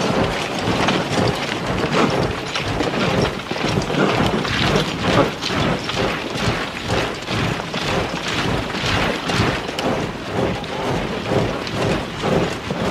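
Battle din from a film scene after the order to advance: a dense, continuous crackle of many overlapping sharp strikes and rumbles, like massed gunfire and charging troops.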